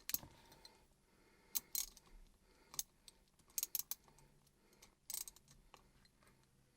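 Short, sharp metal clicks and clinks of a wrench working the threaded locking collars on a car's shift lever, coming irregularly, a few at a time in quick pairs or clusters.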